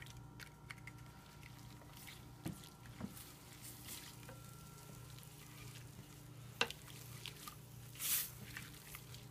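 A spoon scraping concentrated beef stock into a slow-cooker crock and stirring it through sliced onions: soft squishing with scattered light clicks of the utensil on the pot, a sharper click about two-thirds of the way in, over a steady low hum.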